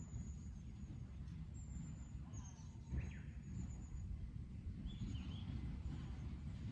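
Birds calling faintly outdoors: short thin high-pitched calls repeating every second or so, with a couple of lower chirps near the middle, over a steady low rumbling background noise.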